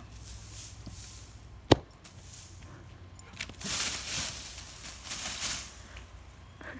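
A single sharp snap just under two seconds in, then a couple of seconds of rustling and crunching as a golden retriever's paws run through dry leaves and low brush.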